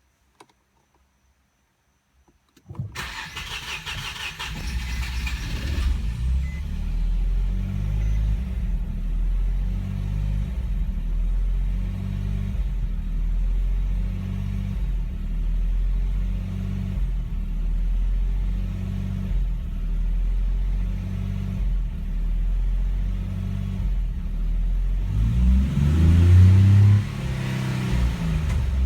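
Infiniti G35's 3.5-litre V6 cranked on the starter for about three seconds before it catches: a hard start, with a P0345 camshaft position sensor code stored. It then idles with a slow rise and fall in level about every two seconds, and is briefly revved near the end.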